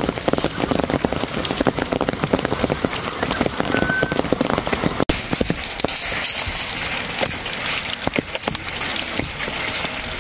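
Rain and hailstones pattering down: a dense, steady patter of many small sharp hits, broken by a brief drop-out about five seconds in.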